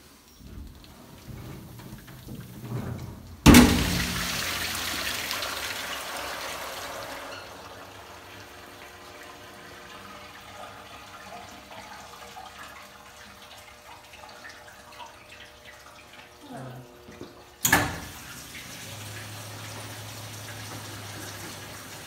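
Meiko CS70 Kube low-temperature hood-type commercial dishwasher running a cycle. The water spray comes on suddenly a few seconds in, loud at first, then settles into a steady wash inside the closed hood. A second sudden gush of water comes near the end, followed by a steady low hum.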